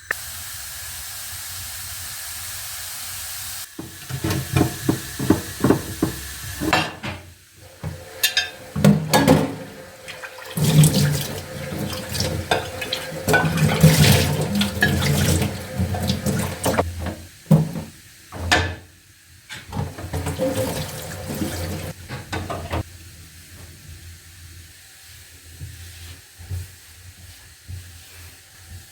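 A kitchen tap runs steadily for about three seconds, then stops. Then comes a long stretch of irregular clatter, knocks and scraping from kitchen work at the counter, which dies down to light handling sounds near the end.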